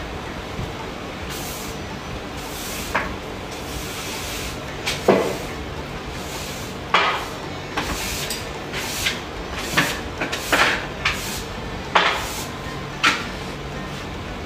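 Irregular knocks and clicks of kitchen things being handled, in a string starting about five seconds in, over a steady low hum.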